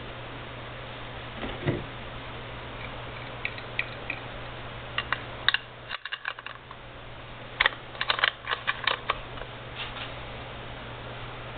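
Sharp clicks and light knocks from a Proto digital torque wrench being handled and its drive head twisted by hand, with a dense run of quick clicks about eight seconds in. A steady low hum underneath.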